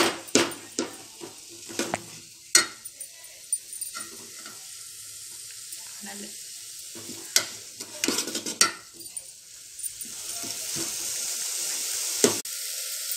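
Onion and tomato masala sizzling in oil in an aluminium pot while a steel spoon stirs it, the spoon scraping and knocking against the pot now and then. The sizzling grows louder over the last few seconds.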